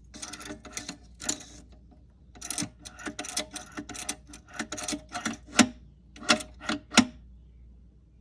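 Irregular metallic clicks and clanks of tools and parts being handled on a 4T65E-HD automatic transmission during teardown, with a few louder, sharper knocks between about five and a half and seven seconds in.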